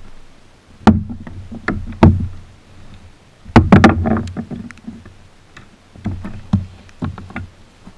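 Knocks and thumps of a landing net, rod and hands against a kayak while a freshly caught plaice is brought aboard and unhooked. The loudest knocks come about a second in, at two seconds and at three and a half seconds, with lighter ones near the end.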